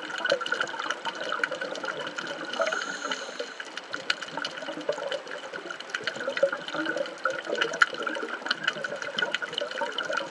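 Underwater sound on a scuba dive over a shallow reef: a steady watery hiss peppered with many sharp, irregular clicks.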